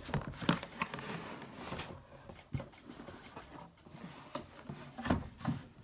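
Louis Vuitton cardboard gift box being handled and opened: irregular rustling, scraping and light clicks of cardboard and packing, with a sharper knock about two and a half seconds in and another about five seconds in.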